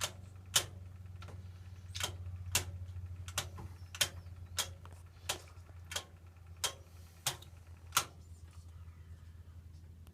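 Hoover Logic washing machine starting its cycle: a steady low hum with a sharp click about every two-thirds of a second, the clicks stopping about eight seconds in.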